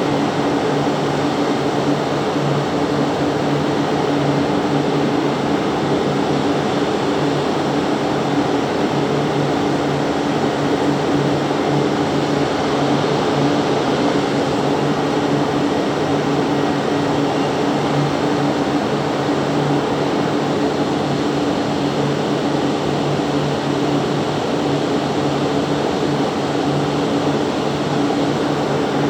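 Steady hum and rush of air from the climate-control fans of an indoor butterfly house, unchanging throughout.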